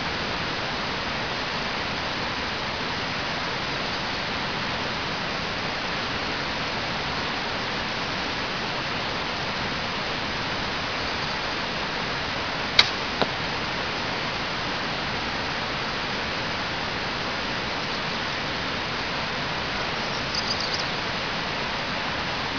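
A Hoyt XT-1000 compound bow shot: one sharp snap of the release about halfway through, followed a split second later by a fainter knock of the arrow striking the target. Under it runs a steady hiss.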